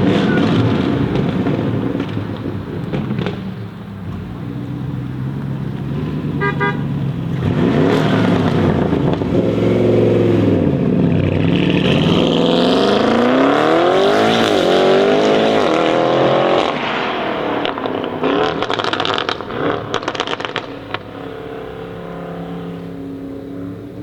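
Audi RS7 C8's twin-turbo V8 through a loud custom exhaust, accelerating hard with the revs dipping and then climbing in long rising sweeps. Past the middle come rapid exhaust crackles and pops, and near the end it settles to a lower, steady drone.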